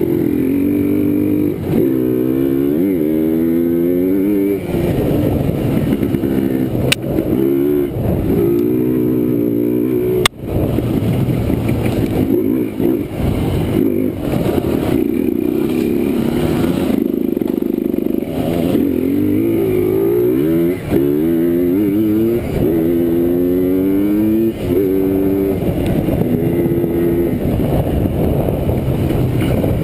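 Yamaha Blaster ATV's single-cylinder two-stroke engine being ridden hard, its pitch climbing again and again as it revs up and dropping back between climbs. A sharp knock comes about ten seconds in.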